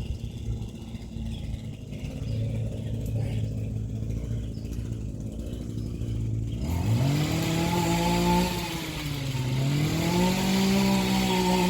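An engine hums low and steady, then rises sharply in pitch, drops back briefly as if shifting gear, and climbs again to a steady higher pitch.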